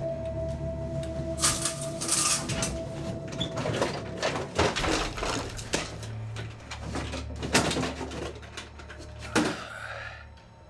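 Dark, low music drone with held tones, cut through by a run of sharp hits, thuds and swishes: the sound effects of a staged struggle. It all fades down near the end.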